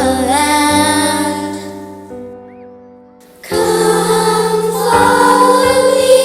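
Song with a sung vocal over sustained accompaniment; it fades down about two seconds in to a brief near-quiet gap, then comes back in loudly about three and a half seconds in.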